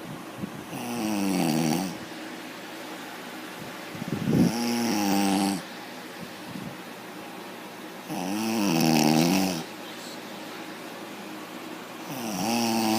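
An elderly woman snoring loudly in her sleep: four long, rasping snores about four seconds apart, one with each breath.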